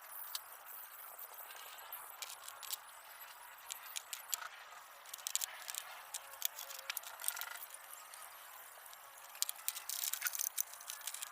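Irregular metallic clinks and rattles, like small metal parts of an old hand-operated ice shaver being handled. The clicks come in clusters, thicker around the middle and again near the end.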